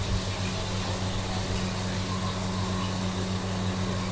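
Steady drone of a commercial kitchen wok stove and its fan: a constant low hum under an even rushing noise.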